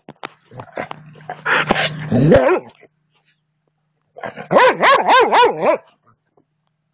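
Playful dog: a stretch of rough growling, then a quick run of about six high yips and barks near the end.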